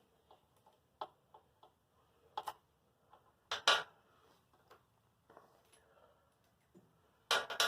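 Scattered sharp metallic clicks and clinks of a hand wrench and bolts as the carburetor mounting bolts are taken out of a Briggs & Stratton snowblower engine. The loudest clicks come about halfway through and again near the end.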